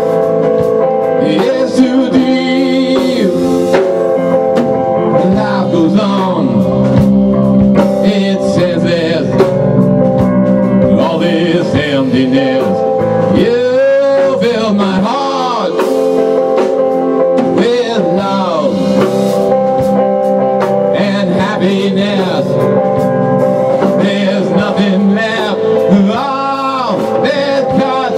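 A rock band playing live: distorted electric guitar, electric bass and a drum kit, with a male voice singing over them.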